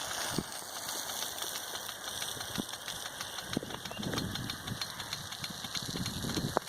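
Rain gun irrigation sprinkler spraying water: a steady hiss of spray with irregular ticks and a few low thumps.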